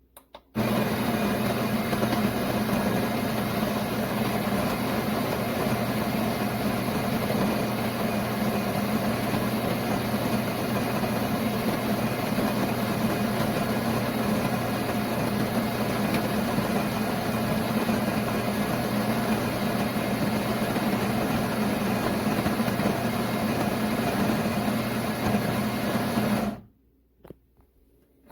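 KitchenAid KCG8433BM burr coffee grinder's motor running steadily through a grind cycle, with a low hum under a grinding rush. It starts about half a second in and cuts off suddenly near the end.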